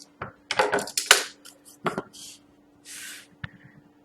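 Hands handling hockey trading card boxes: a string of short rustles and scrapes, a brief hiss about three seconds in and a sharp tap just after.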